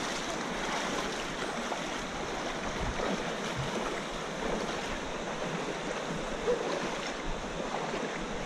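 Steady rushing of a shallow river over rocks, with a few splashes of feet wading through the water.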